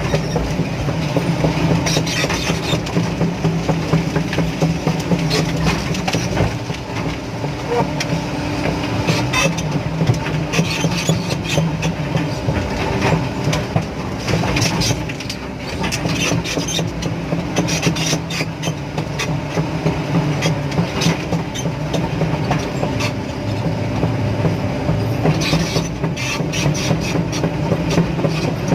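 Hydraulic excavator at work: its diesel engine runs steadily under load while metal parts clank and knock irregularly, like steel tracks or a bucket striking.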